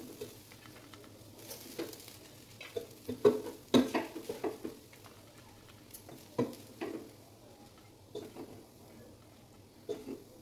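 A metal spoon scraping and clinking in a cooking pot as the rice is stirred. The taps are irregular, with a busy flurry a few seconds in and single knocks after.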